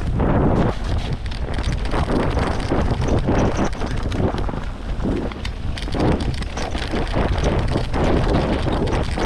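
Mountain bike running fast down a loose, rocky track: wind buffeting the helmet camera's microphone as a steady rumble, with tyres crunching over stones and the bike rattling on constant small knocks.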